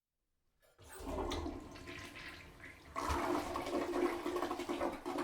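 Toilet flushing in a small bathroom: a rush of water starts just under a second in and surges louder about three seconds in.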